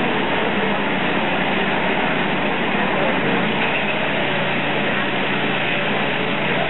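Multitek firewood processor's engine running steadily under load, a loud continuous mechanical drone with a steady low hum.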